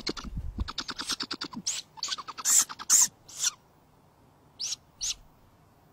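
Owl chicks in the nest giving short, high squeaky begging calls: a rapid run of them at first, then single squeaks spaced out, and two more near the end. There is a brief low flutter at the start as an adult owl takes off from the nest.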